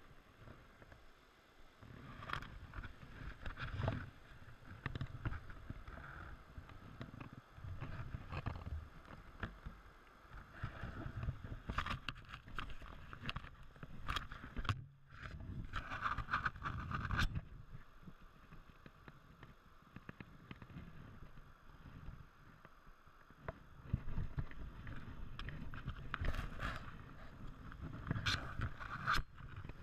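Shallow stream water sloshing and splashing in irregular bursts around a wading angler's legs and a landing net dipped in the water, with rubbing of clothing and gear.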